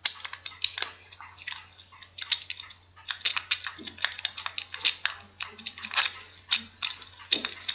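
A homemade half-diamond lock pick raking the pins of a lock under tension from a bent tension tool: a dense run of quick, irregular metal clicks and scrapes. At least two pins set during the raking.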